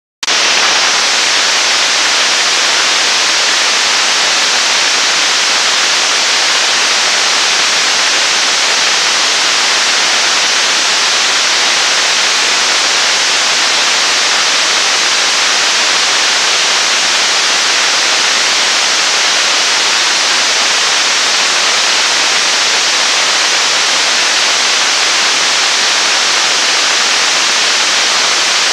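Staged-combustion liquid-propellant rocket engine of about 9 tonnes thrust firing at steady thrust in a hot-fire test: a loud, even rushing noise that cuts in at full level just after the start and holds without change.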